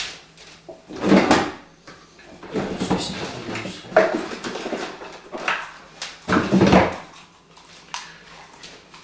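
Handling noise: several irregular bursts of rustling and scraping as things are moved about by hand, the loudest about a second in and again past the six-second mark.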